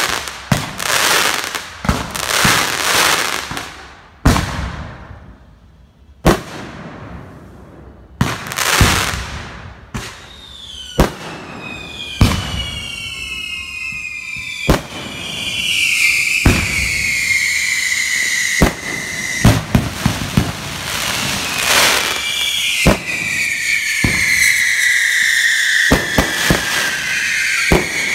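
Fireworks going off in quick succession, sharp bangs and booms. From about halfway through, several overlapping whistles that fall slowly in pitch join the bangs.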